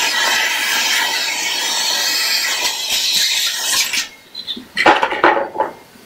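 Shop vac running with a steady rushing whine that cuts off suddenly about four seconds in, followed by a short clatter of a few knocks.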